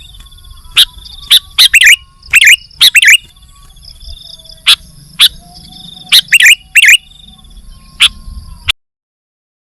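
Sooty-headed bulbul (kutilang) calling in short, loud, sweeping phrases, singly and in quick groups of two or three, over a fainter continuous trill. The sound cuts off abruptly about a second before the end.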